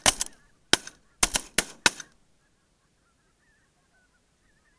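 Rapid volley of shotgun shots, about eight sharp cracks within two seconds, fired at a passing flock of geese; faint goose honking can be heard between and after the shots.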